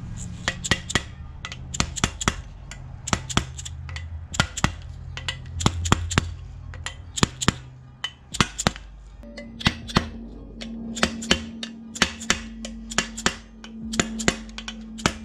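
Repeated sharp, irregular taps, about two or three a second, driving a block guard down into the water jacket around the cylinders of an open-deck aluminium engine block.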